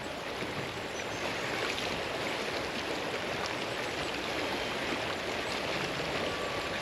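Shallow glacier river rushing steadily over stones.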